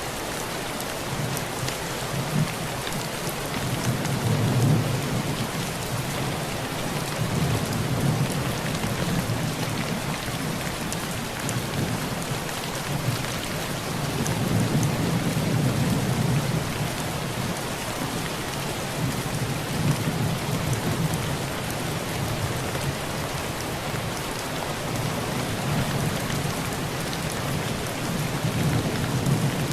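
Heavy rain drumming steadily on a tin roof, with thunder rolling in low rumbles that swell and fade several times.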